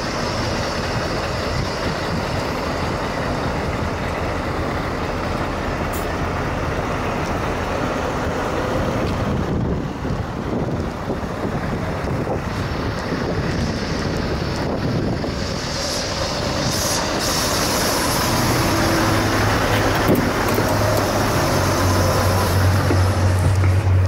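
Scania R520's 16-litre V8 diesel engine idling steadily. Its low hum grows stronger over the last several seconds.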